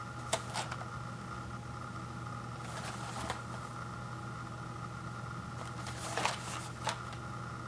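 Hands handling and turning a small paperboard granola bar carton: a few light taps and scuffs of the cardboard, the busiest about six seconds in as the box is rotated. A steady low hum runs underneath.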